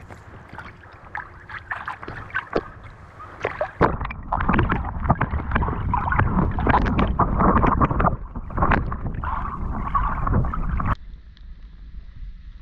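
Sea water splashing and sloshing close to the microphone as a swimmer swims, full of sharp little clicks. It grows louder and busier about four seconds in, then cuts off suddenly near the end to a faint steady hiss.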